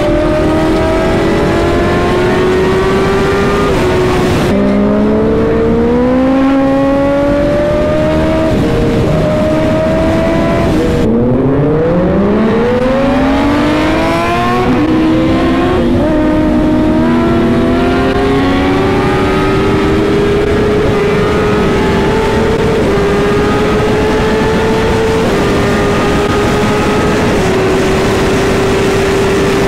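Kawasaki Ninja ZX-10R inline-four engine accelerating hard through the gears, its pitch climbing in steps with each upshift. About eleven seconds in the pitch drops sharply, then sweeps steeply up and settles into a high, nearly steady pitch at very high speed, near 270 km/h.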